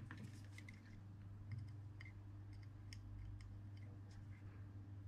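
Faint, scattered small clicks and ticks of hand-soldering on a circuit board, over a low steady hum.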